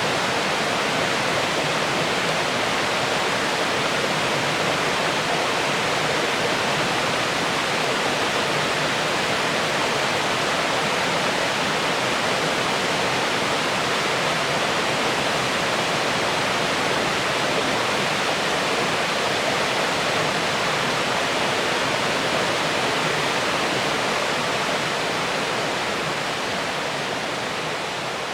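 Waterfall pouring steadily into its plunge pool, a dense continuous rush of water that fades slightly near the end.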